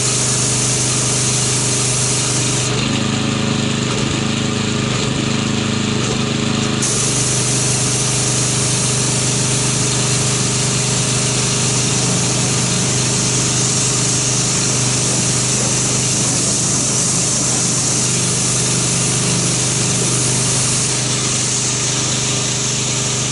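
Pressure washer running steadily, its wand spraying water to rinse a car: a constant pump hum under a hiss of spray. About three seconds in the spray hiss drops and the hum shifts for about four seconds, then the spray comes back.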